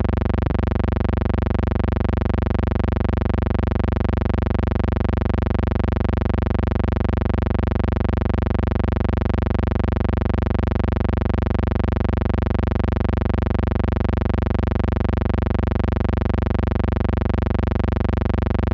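A loud, steady electronic buzzing tone, rich in overtones and unchanging in pitch, that starts abruptly and cuts off abruptly.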